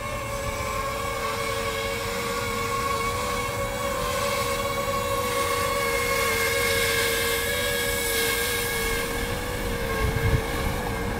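DJI FPV drone hovering close by, its propellers giving a steady whine of several pitches that waver slightly and dip near the end, heard from inside a car.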